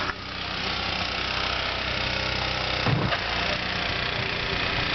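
An engine running steadily under a rushing hiss, with a brief louder low thump about three seconds in.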